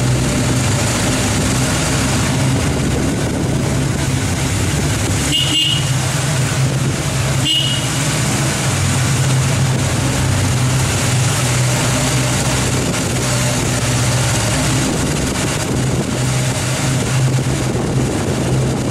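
Motor vehicle engine running steadily under way, with constant wind and road noise. Two short high-pitched beeps come about five and a half and seven and a half seconds in.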